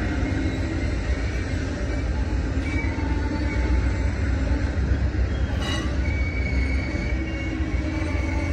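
Amtrak California Zephyr passenger train rolling slowly into the station: a steady low rumble from the double-deck Superliner cars and the diesel locomotives ahead. There is a brief sharp clank about halfway through, and a faint high wheel squeal in the second half.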